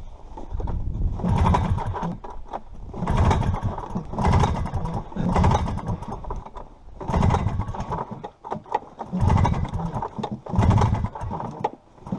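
Late-1970s Yamaha Enticer 250 two-stroke snowmobile engine being pull-started, cranked over and over without catching. There are about seven pulls, each a second or so long, each with a quick chugging of compressions.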